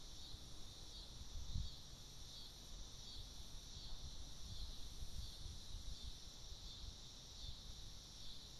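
Steady high-pitched insect chorus of crickets or cicadas, pulsing gently. Wind rumbles on the microphone now and then, loudest briefly about a second and a half in.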